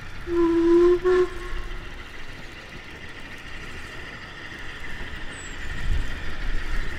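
Steam locomotive whistle blowing one blast of about a second, cut by a short second toot. After it comes a steady hiss and low rumble from the engine.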